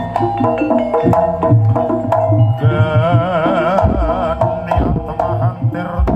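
Javanese kuda lumping (jaranan) ensemble playing live: hand drums and ringing metal percussion in a fast rhythm. A wavering high melody joins about three seconds in.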